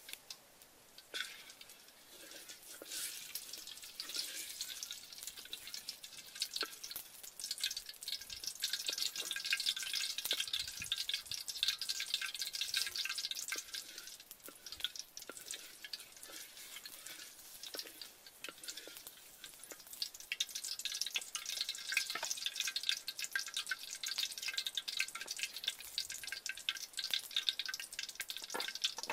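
Oil heating in a wok over a wood fire, crackling and spitting in a dense stream of small pops that builds up about two seconds in.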